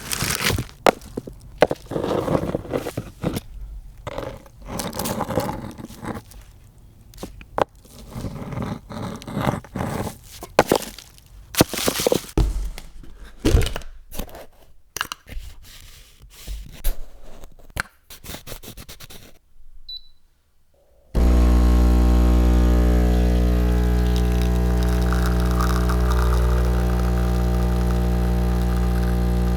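A run of irregular knocks, thumps and scrapes from objects being handled. After a short pause, a machine starts suddenly about 21 seconds in and runs with a loud, steady, even-pitched hum.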